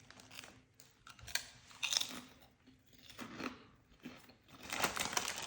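A person biting and chewing crunchy popped protein chips close to the microphone, with irregular crisp crunches, the loudest bursts about two seconds in and near the end.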